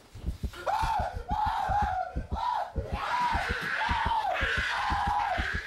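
A voice screaming in a run of short, repeated cries that each rise and fall in pitch, over rapid low thuds several times a second.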